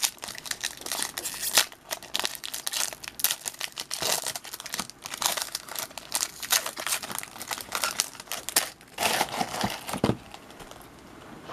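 Trading card pack wrapper crinkling and tearing as a new pack is opened, a dense run of crackles that dies down about ten seconds in.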